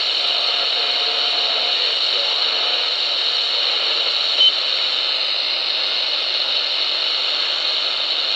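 Shortwave static hissing steadily from the small speaker of a portable radio modified to receive up to 29 MHz, tuned around the 27 MHz band with no voice coming through. A short high pip sounds about four and a half seconds in.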